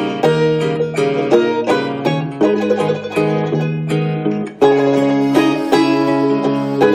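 Background music led by fast-plucked acoustic string instruments, banjo- or guitar-like, with notes struck several times a second and a brief break about four and a half seconds in.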